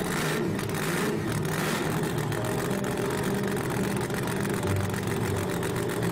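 Cartoon sound effect of a monster truck's big engine, just started and running steadily at idle with a low, even hum.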